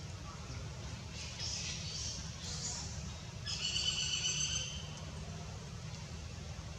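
Outdoor ambience with a low steady rumble; about three and a half seconds in, a high-pitched animal call holds steady for about a second.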